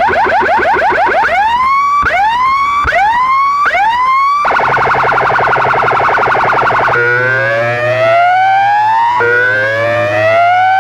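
Electronic siren effects played loud through a DJ sound-box loudspeaker system. First come rapid chirps, then four quick rising whoops. A fast warble follows, then slow rising sweeps repeating about every two seconds over a steady low bass hum.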